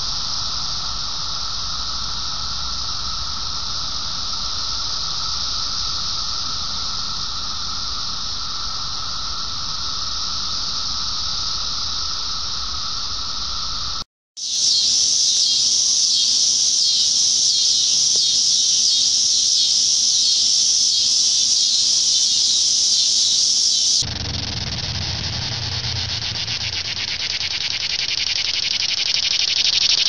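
Cicadas singing in the trees in a loud, steady, high-pitched drone. The sound cuts out briefly about halfway through and returns louder and higher. In the last few seconds it changes to a pulsing buzz that grows louder.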